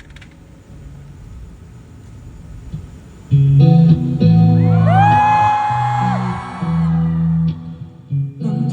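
Band music with electric guitar and bass: after a quieter start, the band comes in loudly about three seconds in, with held bass notes and a note sliding up in pitch in the middle.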